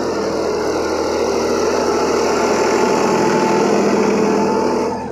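New Holland 5620 Plus tractor's diesel engine running steadily while it pulls a kraha (soil scraper) loaded full of soil. The sound drops off noticeably near the end.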